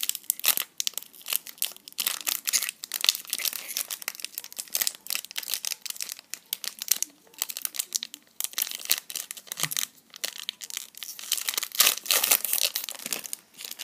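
Foil Magic: The Gathering booster-pack wrapper crinkling and crackling in the hands as it is worked and pulled open, a dense, irregular run of crackles.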